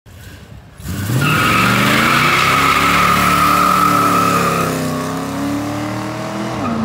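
Car engine revving up with a long high tire squeal, as in a burnout. The squeal fades out partway through while the engine keeps running, dropping in pitch near the end.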